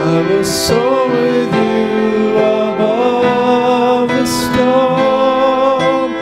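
A slow, subdued worship song, sung with instrumental accompaniment; the notes are held and the melody moves gently.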